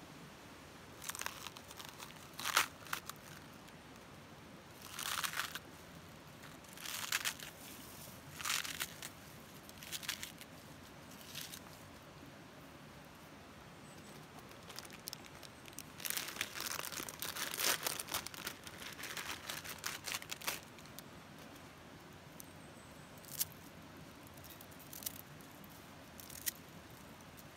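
Crinkling and rustling in separate bursts of about a second each, a longer run of it a little past the middle, then a few single sharp ticks near the end.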